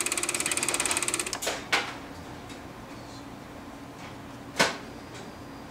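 Elmo Super 8 projector mechanism running in rewind with a fast, even chatter that stops about a second in. A few sharp clicks follow, the loudest about three seconds later.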